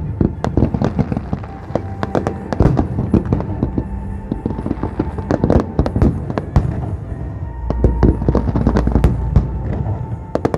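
Aerial fireworks display: a rapid, continuous string of shell bursts and crackling, with music playing alongside. A heavier low rumble of booms builds about three quarters of the way through.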